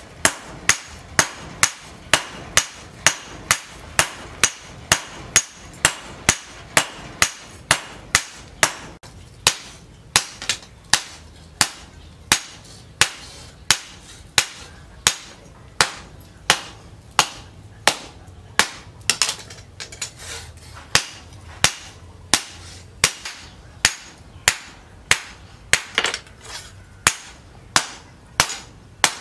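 Hand hammer forging a red-hot leaf-spring steel machete blade on a cylindrical steel anvil: steady blows about two a second, each with a bright metallic ring.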